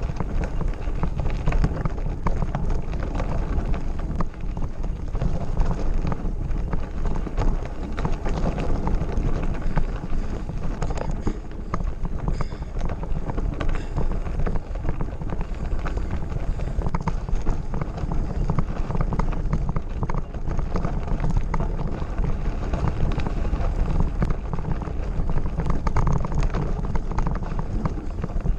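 Mountain bike rolling fast over a gravel forest road: tyres crunching stones and the frame and parts rattling in a steady jittery clatter, with wind buffeting the microphone underneath.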